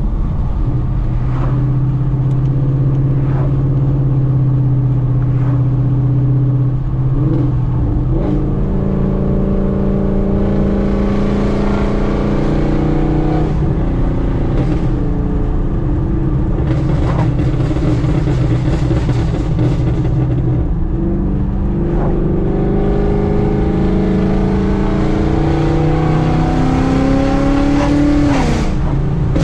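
Ford Mustang GT's Coyote 5.0 V8 with long-tube headers, X-pipe and muffler delete (straight-piped, burble tune), heard from inside the cabin while driving. The exhaust note climbs gradually and drops back several times as the car pulls and shifts.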